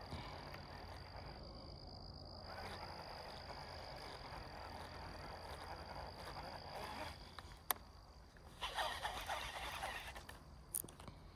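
Frogs croaking faintly, with a sharp click about two-thirds of the way in, a short stretch of rustling after it, and another click near the end.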